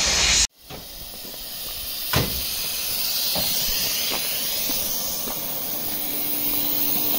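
Compressed air hissing steadily from an air hose, with one sharp click about two seconds in.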